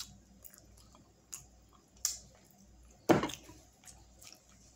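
Close-miked chewing of sauce-covered chicken wing meat: soft wet smacks and clicks of the mouth, with a louder burst about three seconds in.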